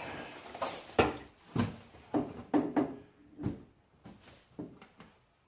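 A series of irregular knocks and clunks from hands-on work, loudest about a second in, thinning out near the end.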